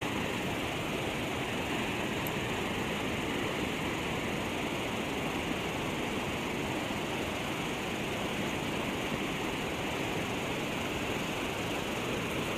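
Steady rushing of river water pouring over a low dam.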